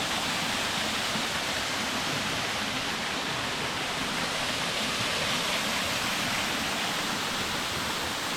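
Small waterfall rushing with a steady, even noise of falling water.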